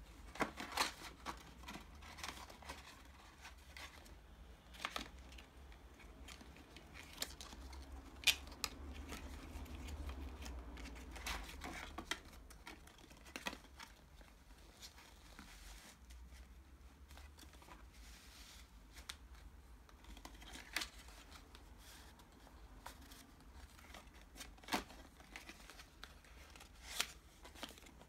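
Cardstock flaps and folded paper photo inserts of a handmade explosion box handled by hand: faint rustling and rubbing of paper, with scattered sharp snaps and taps of card as panels are opened and pressed flat.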